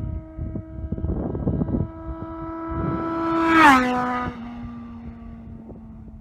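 1997 Honda Nighthawk motorcycle passing at high speed, about 125 mph. Its engine note holds steady and grows louder as it approaches, peaks about three and a half seconds in, then drops sharply in pitch as it goes by and fades away. Wind buffets the microphone in the first two seconds.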